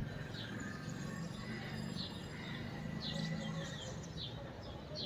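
Birds chirping: short, high chirps repeated irregularly, several a second at times, over a steady low background noise.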